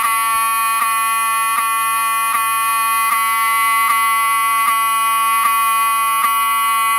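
Wheelock 7002T-24 (24-volt) fire alarm horn strobe sounding continuously after a manual pull station has been pulled: a steady, loud buzzing horn tone, with a faint tick about every three-quarters of a second.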